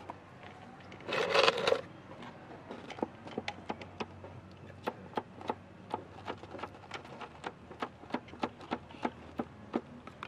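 Rubber balloon dabbed again and again against the side of a cement flower pot: a quick, irregular run of light sharp taps, with a louder rustling scrape about a second in.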